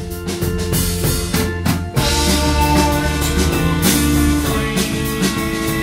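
Live band music led by a drum kit, with steady bass and held chords; the full band comes in louder about two seconds in.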